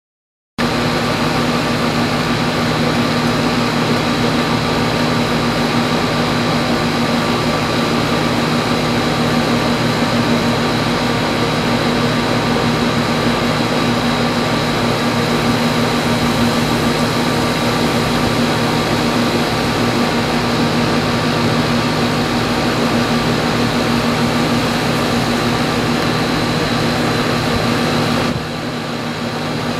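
A steady machine hum: a constant drone holding several fixed tones over an even noise, dipping slightly in level near the end.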